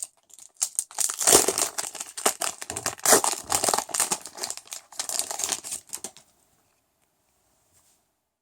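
Crinkly wrapper packaging rustling and crackling as it is handled, in a rapid run of crackles that stops suddenly about six seconds in.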